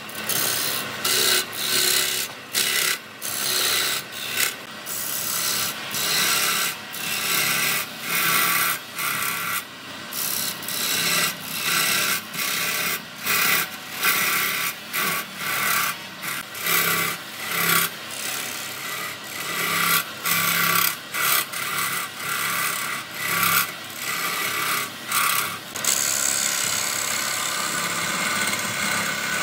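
Wood being worked on a wood lathe: a hand tool rasping against the spinning workpiece in short repeated strokes with brief breaks between them, then running steadily for the last few seconds.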